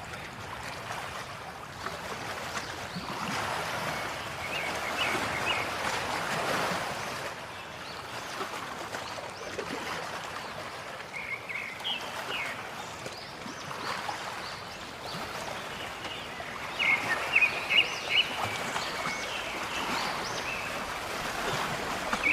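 Running water, a steady rushing that swells and eases, with short high bird chirps now and then, busiest near the end.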